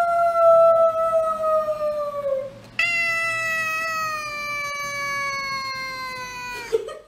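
Domestic cat giving two long, drawn-out meows, each sliding slowly down in pitch. The first fades out about two and a half seconds in; the second starts just before three seconds and runs about four seconds before stopping near the end.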